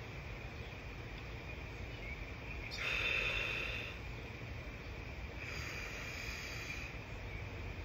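Insects buzzing steadily over a low outdoor rumble. The buzz swells louder for about a second around three seconds in, and again for about a second and a half near six seconds.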